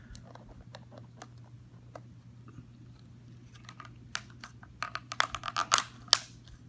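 Packing material being handled while a snake shipping box is unpacked: scattered clicks and crinkles, sparse at first and then busier for the last two and a half seconds, over a steady low hum.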